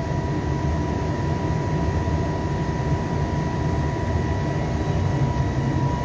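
SCM L'Invincible TI 5 spindle moulder running steadily with its spindle at speed: a constant low drone carrying a steady high whine.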